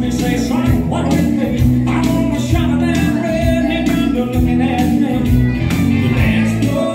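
Dance music played loud through a PA, a singer over a backing with a steady beat.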